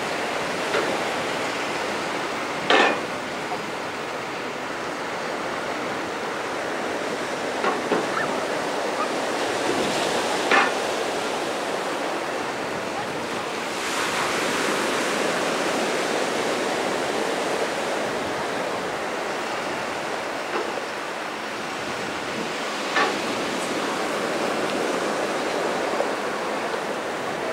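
Surf washing steadily onto a beach, with a few short sharp knocks cutting through it, the loudest about three seconds in.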